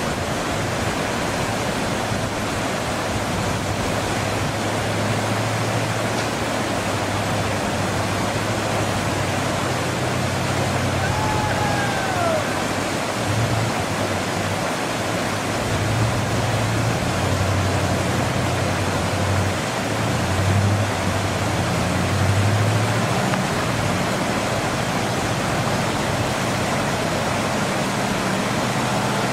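Loud, steady rushing of a swollen river, with the low drone of a ZIL-131 army truck's engine underneath, swelling in the second half as the truck works through the ford.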